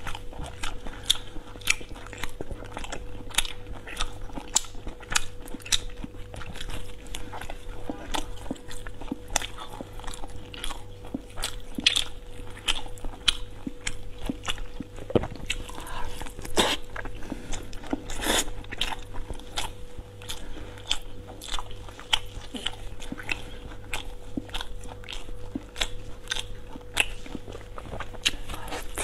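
Close-miked chewing and mouth sounds of someone eating braised pork belly: a dense run of wet clicks and smacks, over a steady hum.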